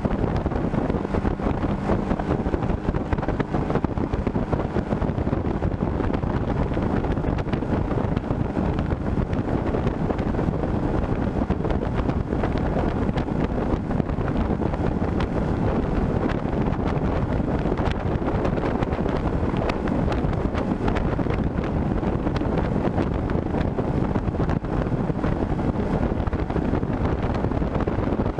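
Small inflatable boat under way: its 40 hp Yamaha tiller outboard runs at a steady speed under heavy wind buffeting on the microphone.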